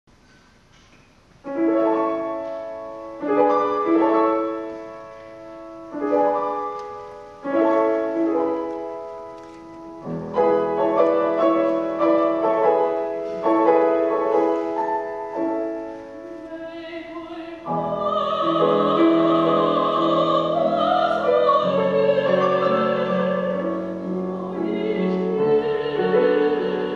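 Grand piano playing a classical introduction of struck chords that ring and fade, becoming more continuous. About 18 seconds in, a woman's operatic voice enters with a wide vibrato, singing over the piano accompaniment.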